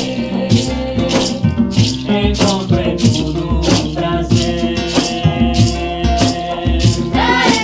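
Acoustic folk music with maracas rattling in a steady rhythm over guitar and djembe, with held vocal notes and no words sung.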